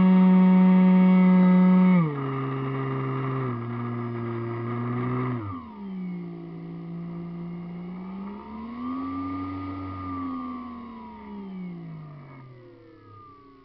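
R/C model airplane's motor and propeller heard from on board, running at a steady high pitch, then throttled back in two steps about two and three and a half seconds in. Near the middle the pitch drops sharply, then rises and falls again in one slow smooth glide as it fades toward the end.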